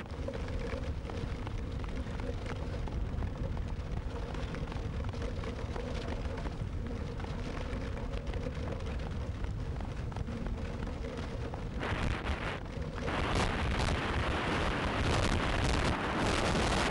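Wheels of a dog-pulled dryland training cart rolling fast over a dirt trail, a steady rumble with wind buffeting the microphone. About thirteen seconds in the noise turns louder and hissier.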